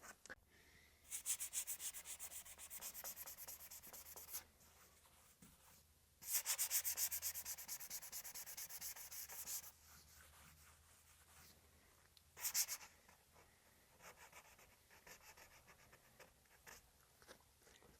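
Paintbrush scrubbing paint onto a plywood board in quick, even back-and-forth strokes. There are two runs of a few seconds each and a short burst about two-thirds of the way in, with fainter strokes between.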